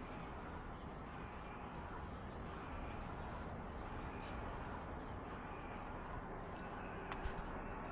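Outdoor garden ambience: a steady low background hum with faint, short bird chirps now and then, and a few sharp clicks about seven seconds in.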